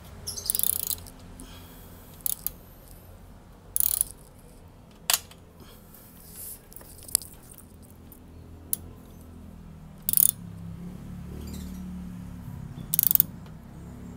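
Hand tool tightening the radiator guard's mounting bolts on a motorcycle: short bursts of metallic clicking and rasping, about eight of them spread a second or few apart, as the bolts are snugged down, not overly tight.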